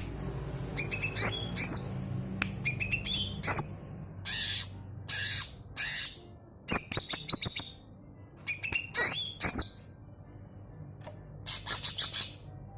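Cucak ijo (green leafbird) singing in full voice: a rapid, varied string of loud chirps, squawky notes and quick whistled slurs, with short pauses between phrases.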